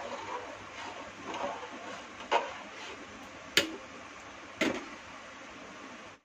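Metal ladle knocking against an aluminium cooking pot while stirring: three sharp clinks about a second apart in the second half, over a faint steady hiss.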